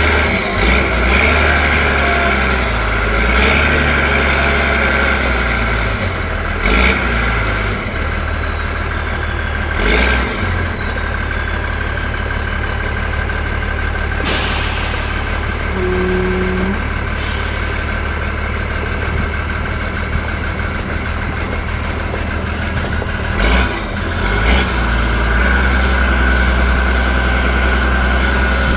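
Military truck's diesel engine running as the truck drives slowly over gravel, with a steady whine and a few sharp clunks. A short loud hiss comes about halfway through.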